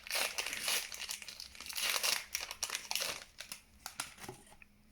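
A trading card pack wrapper being torn open and crinkled by hand, rustling and crackling steadily, then stopping about half a second before the end.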